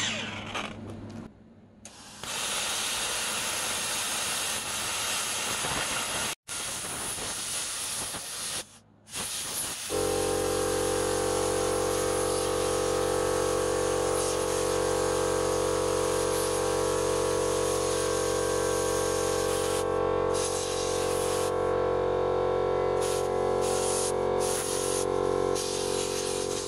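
Angle grinder spinning down, then a hand-held plasma cutter hissing steadily as it cuts steel plate. From about ten seconds in, a steady machine hum with several tones runs under the hiss, and the hiss breaks off briefly a few times near the end.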